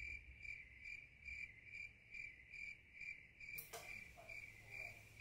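Faint cricket chirping, a steady even rhythm of about three chirps a second, with a single soft click about three and a half seconds in.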